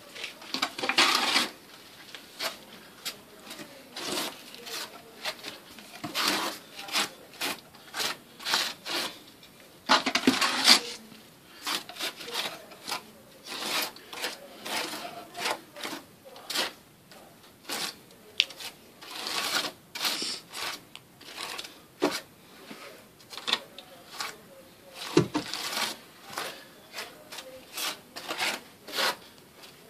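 Trowel scraping and clinking as thinset mortar is spread: a long run of short, irregular scrapes and taps, with a few longer, louder rasping strokes.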